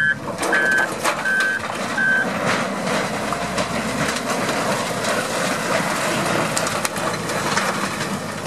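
Diesel wheel loaders working a demolition. A reversing alarm beeps four times in the first two seconds and then stops, over the steady running of the heavy engines, with scattered knocks and crunches of rubble and metal sheeting being pushed.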